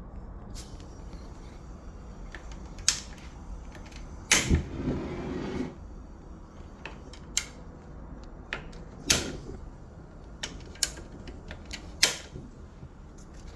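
A handful of sharp knocks and clicks, about six spread over the stretch, the two loudest each followed by a brief rushing noise.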